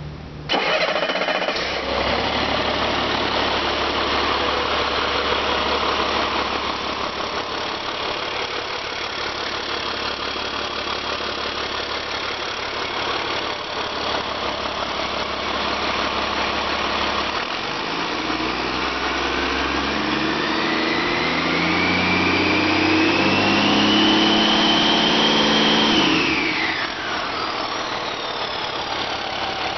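A 2008 CAT C7 Acert inline-six turbodiesel on an engine stand fires up about half a second in and settles into a steady idle. From about 18 seconds it is revved up, pitch climbing with a rising whine, then drops sharply back to idle at about 26 seconds.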